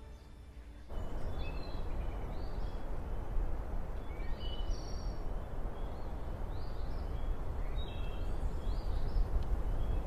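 Outdoor ambience starting about a second in: small birds chirping now and then over a steady background rush.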